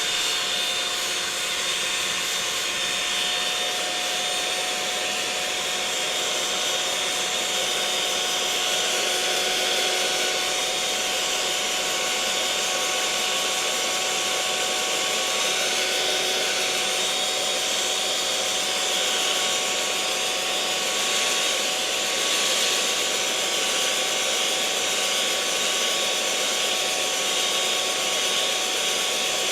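Electric mixer running continuously at a steady speed, a whirring motor hum with a steady whine over it.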